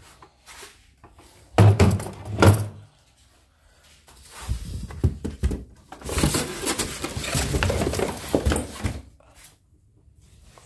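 Styrofoam packing and a cardboard box being handled as an embroidery machine is lifted out. Two loud knocks come about two seconds in, then several seconds of foam and cardboard rubbing and scraping.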